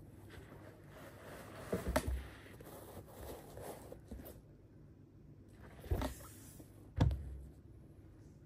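Hands handling a synthetic-leather indoor football shoe and its laces: soft rustling and scraping, with short bumps about two, six and seven seconds in, the last the loudest.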